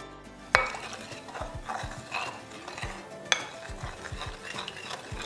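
A spatula stirring a coconut-milk marinade in a bowl, with wet scraping against the sides. There is a sharp knock about half a second in and another a little past three seconds.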